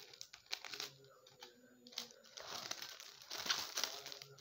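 Thin plastic gift wrapping being pulled and crumpled by hand, crinkling in several bursts, loudest about three and a half seconds in.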